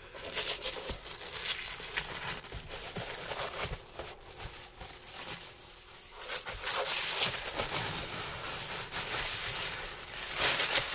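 Thin white packing paper crinkling and rustling as it is cut open and pulled back from a boxed game, with louder bouts of crumpling a little past halfway and near the end.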